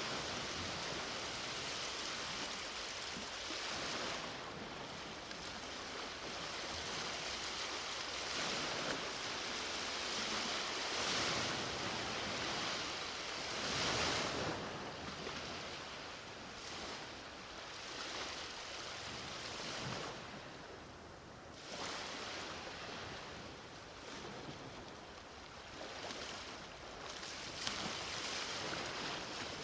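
Sea waves breaking and washing up the shore, a continuous rush that swells and recedes every few seconds.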